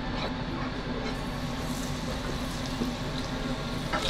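Steady low hum and hiss of a restaurant kitchen. Just before the end, a hand-shaped sakura shrimp and aosa seaweed kakiage fritter is slipped into the deep fryer's hot oil and begins to sizzle.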